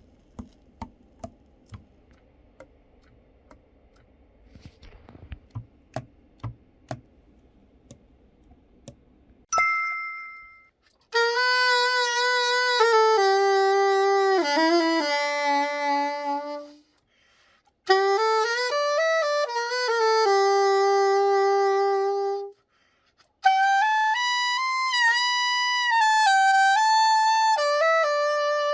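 A saxophone playing three slow phrases of held notes that step between pitches, with short breaks between the phrases. Before it come faint scattered clicks and a two-note chime.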